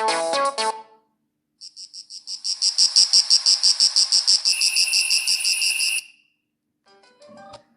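Sagem MY-750c mobile phone ringtones. An electronic tune ends about a second in. After a short gap a fast, high-pitched pulsing trill of about eight beeps a second swells in, a second, lower tone joins it, and it stops about six seconds in.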